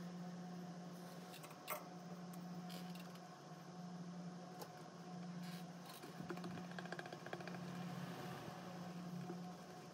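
Quiet room tone with a steady low hum, a sharp click a little under two seconds in, and faint scattered clicks and scratchy handling noises, busiest in the second half.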